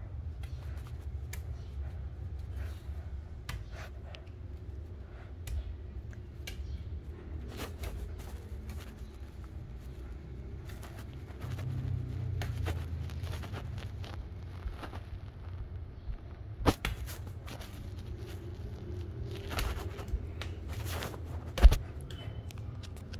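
Steady low rumble with scattered light clicks and knocks, and two sharper knocks, one about two-thirds of the way through and a louder one near the end.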